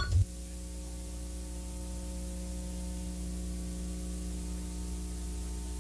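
Steady electrical hum with hiss and no other sound: dead air in the broadcast's audio between announcements.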